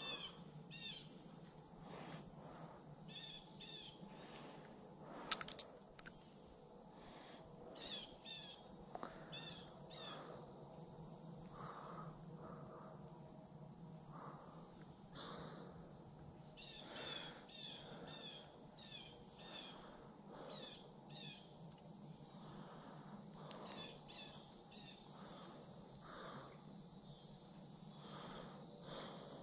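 Steady high-pitched insect chorus from the pondside trees and grass, with short chirps repeating in little runs throughout. A quick cluster of sharp clicks about five seconds in is the loudest sound.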